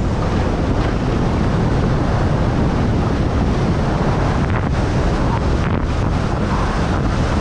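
Steady, loud wind rushing over a skier's point-of-view camera microphone during a fast descent, mixed with the hiss of skis running over snow.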